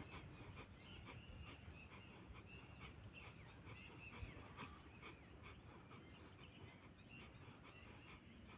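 Near silence: faint outdoor ambience with scattered faint high chirps.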